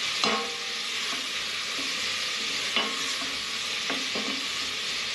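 Onions and leeks sizzling as they fry in oil and a little butter in a stainless steel pot, stirred with a spoon that knocks against the pot three times.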